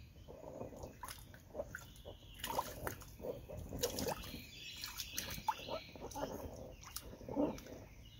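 A baby's hands patting and splashing shallow water in a small inflatable paddling pool: irregular slaps and sloshes, several to the second.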